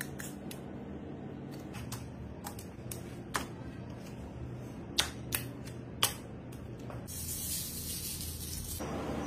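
Light clicks and taps of wooden skewers and food being handled on an aluminium baking tray, a few sharper taps in the middle, over a steady kitchen hum. Near the end a high hiss lasts about two seconds.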